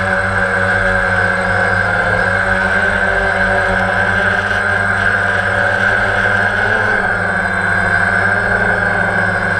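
Electric motors and propellers of a quadcopter drone, heard close from the drone's own camera: a loud, steady whine and hum.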